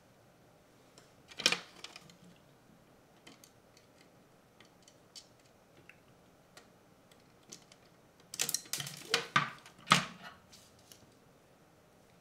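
Small plastic parts of a Teenage Engineering PO-80 Record Factory kit and a screwdriver being handled during assembly: one sharp click about a second and a half in, scattered light ticks, then a quick run of clacks about two seconds long near the end.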